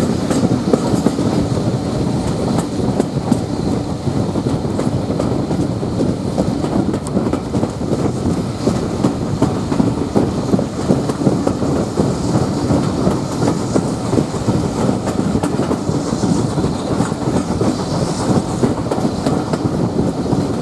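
Steam-hauled passenger train running at speed, heard from a carriage window behind a BR Standard Class 4 2-6-4T tank engine: a steady loud rumble, dense with small irregular knocks of the wheels on the track.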